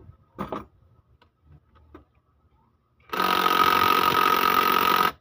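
Cordless impact wrench running for about two seconds, starting about three seconds in, as it undoes a cylinder head bolt on a Toyota 2KD diesel engine. A short knock of the socket and tool comes shortly after the start.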